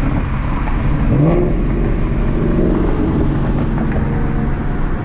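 2019 Mustang GT's 5.0-litre V8 running through a Corsa Xtreme catback exhaust as the car drives; the note rises briefly about a second in, then holds steady.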